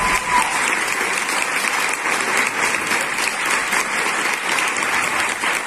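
Theatre audience applauding steadily, the clapping that greets the end of a musical number; the number's last held note stops right at the start.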